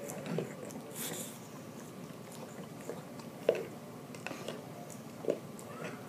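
Bulldog licking peanut butter out of a jar, wet licking and smacking with scattered small clicks. Two sharper, louder clicks come about three and a half and five seconds in.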